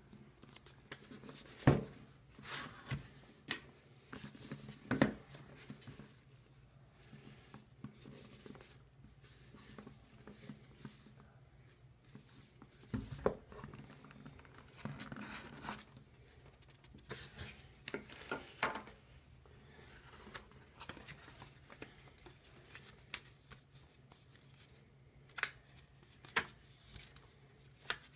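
Cardboard packaging being handled and opened, a Samsung Galaxy S5 retail box and its shipping carton: scattered knocks, scrapes and paper rustling, with a few sharper taps.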